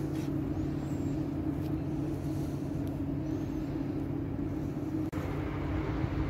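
Steady low mechanical hum, like engine or traffic noise, holding a constant drone. It cuts out for an instant about five seconds in.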